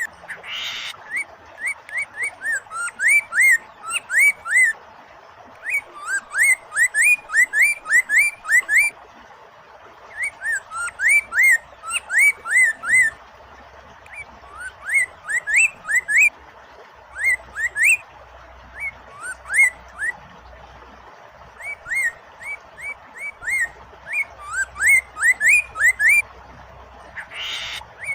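Chinese hwamei (poksay mandarin) singing fast runs of loud, repeated whistled notes, each a quick sweep in pitch, in phrases of a few seconds with short pauses between them, over a steady rush of flowing water. A short burst of hiss comes near the start and again near the end.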